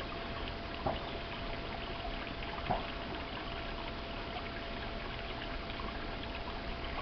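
Steady trickle of running water, with two faint short sounds, about a second in and just before three seconds.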